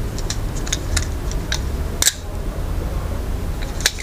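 Cold Steel FGX balisong being flipped through a combo: its handles clack against each other and the blade in a string of light, sharp clicks, the loudest about two seconds in, over a low steady hum.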